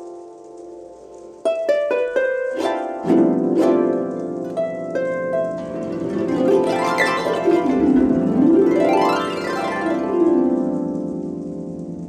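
Background music of plucked-string notes, with sweeping glides up and down in the middle.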